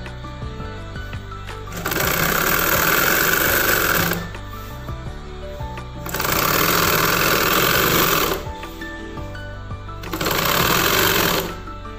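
Domestic straight-stitch sewing machine running in three short runs as a sleeve is stitched into a chudidar's armhole: about two seconds, then two seconds, then one second, with pauses between as the cloth is repositioned. Soft background music plays in the pauses.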